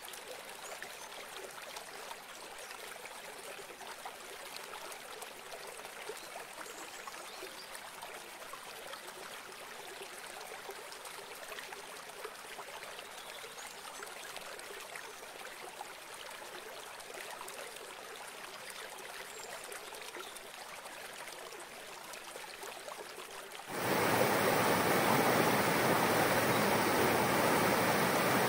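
River water flowing in a steady rush. About 24 s in it switches abruptly to a much louder, fuller rush of water that reaches deeper in pitch.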